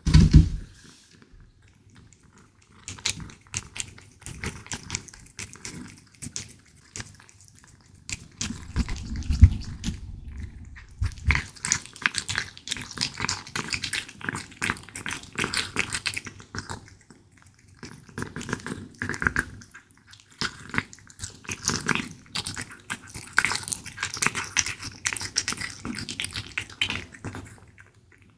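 British Shorthair cat chewing cubes of raw beef: wet, clicking chews and smacks in runs, with short pauses between mouthfuls. A single thump at the very start.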